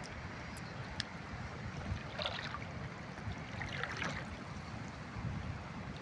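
Water splashing twice, a second or so apart, over a steady rush of river water and wind, with a single short click about a second in.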